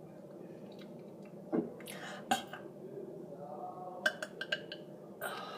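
A person trying to burp: short gulping throat sounds about one and a half and two and a half seconds in, then small mouth clicks and breaths. The attempts come out weak.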